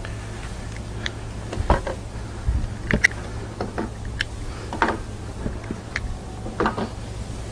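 Handling noises from a wet absorbent filter fabric and its plastic tray being worked by hand: scattered, irregular light clicks and rustles over a steady low background hum.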